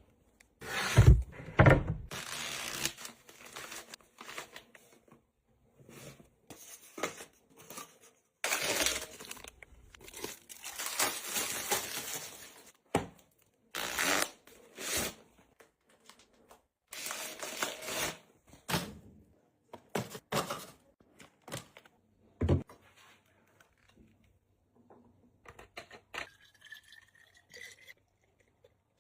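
Packaging being handled at close range, with bursts of tearing and crinkling and a few sharp knocks. A faint rising squeak comes near the end.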